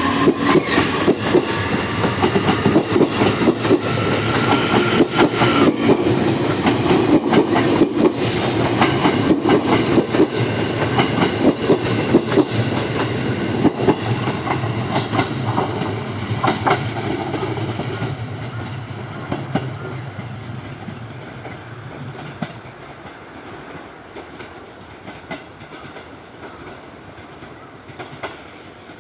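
JR Kyushu 811 series electric train pulling away and running past. Its traction motors give a rising whine for the first several seconds, while the wheels clack over rail joints. The sound fades steadily from a little past halfway as the train moves off.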